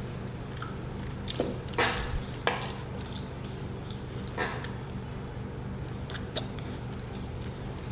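Someone eating grilled chicken with their hands: a few short wet smacking and sucking mouth sounds as meat is pulled off the bone, over a steady low hum.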